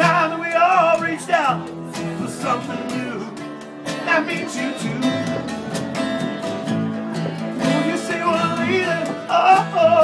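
Acoustic string band playing: acoustic guitar strumming, mandolin and upright bass, with a melody line that bends in pitch, loudest near the start and again near the end.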